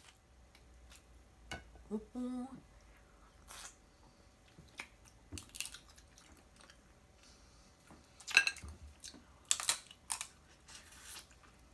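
Close-up eating sounds of snow crab: wet slurping and sucking as crab meat is pulled from the shell and eaten by hand, with chewing and light clicks of shell in between. The loudest slurps come in the last few seconds.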